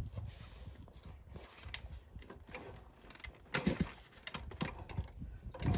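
Irregular mechanical clicks and clunks of a small motorcycle being handled, with no engine running.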